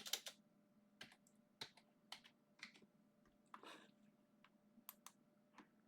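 Faint, irregular clicking and tapping of a computer keyboard: about ten short clicks a second or so apart, one slightly longer rustling one in the middle.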